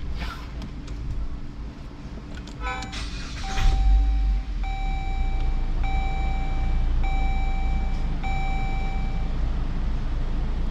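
Dodge Journey's warning chime: a quick run of tones, then a steady beep repeating about once a second, over a low rumble.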